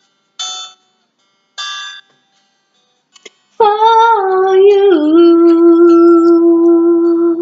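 Two short plucked string notes, then a woman's singing voice holding one long note that slides slightly lower about halfway through.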